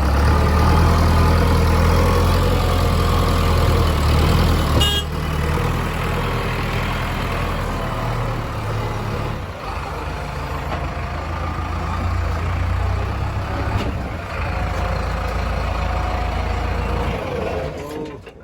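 Heavy diesel engine of earth-moving machinery running steadily, with a short sharp clank about five seconds in. The engine sound drops away near the end.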